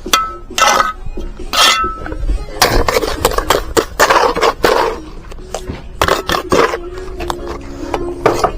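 Trowel scraping wet mortar and knocking against bricks, with a brief metallic ring twice in the first two seconds, over background music.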